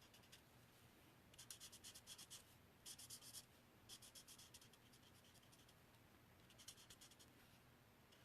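Alcohol marker tip rubbing quickly back and forth on cardstock, colouring in a stamped image. It comes in a few short bursts of rapid scratchy strokes with brief pauses between, and it is faint.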